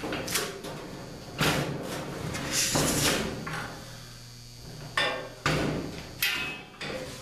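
Clatter of a garden cart's tub and frame being shifted and turned by hand: a handful of sharp knocks with scraping and rattling between them, the longest scrape a little before halfway, and a quick run of knocks near the end.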